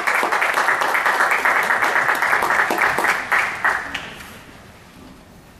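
Audience applause, dense clapping that thins out and dies away about four seconds in.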